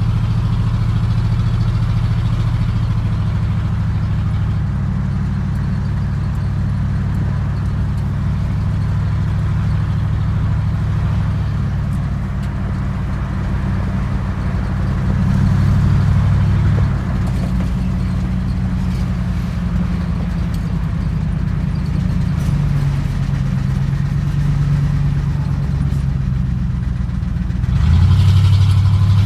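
Squarebody truck's engine running on the road, heard from inside the cab: a steady low drone that shifts pitch up and down with speed, getting louder briefly about halfway through and again near the end.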